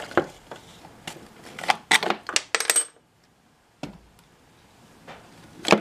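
Clicks and clatter of hard plastic and metal parts being handled as the plastic air cleaner housing is worked off a Honda GCV160 mower engine, with a quick run of rattles in the first few seconds and a single loud knock near the end.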